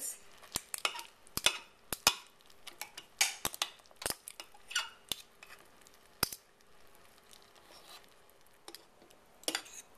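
A metal fork and tongs clink and scrape against the ceramic crock of a slow cooker while shredding cooked chicken in broth. The sharp clicks come thick for the first six seconds or so, then only now and then.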